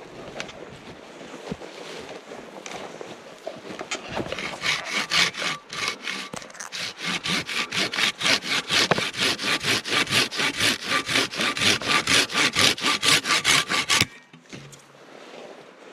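Hand saw cutting wood in quick rhythmic strokes, about four a second. The strokes start about four seconds in, grow louder, and stop abruptly near the end.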